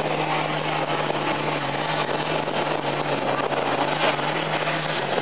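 A modified pulling tractor's diesel engine running flat out under heavy load as it hauls the sled down the track. The smoke is thick and black, the sign of an engine fuelled hard at full power. The note is steady and drops slightly about two seconds in.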